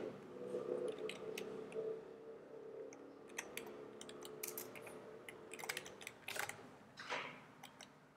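Typing on a computer keyboard: irregular, scattered keystrokes, some in quick runs. A faint hum sits underneath during the first half.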